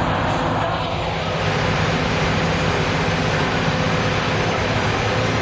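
Diesel transit bus engine idling close by with a steady, even hum.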